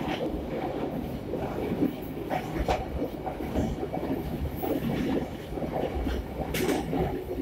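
Fajar Utama Yogyakarta passenger train running on the rails, heard inside its rear vestibule: a steady low rumble, with a few sharp clicks from the wheels over the track.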